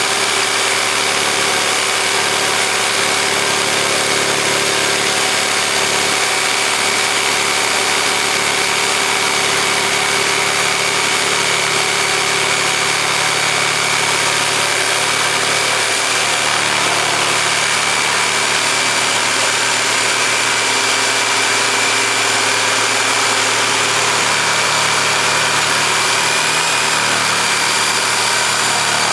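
Corded jigsaw running steadily as its thin blade cuts a curve through a 5/4 wooden decking board.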